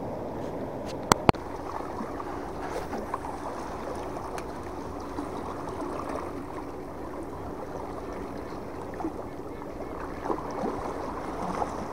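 Steady wash of calm sea water against shoreline rocks, with wind on the microphone. Two sharp clicks a little over a second in.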